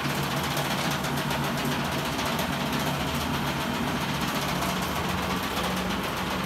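A3 DTF film printer and its powder shaker running together: a steady mechanical noise with a constant low hum underneath.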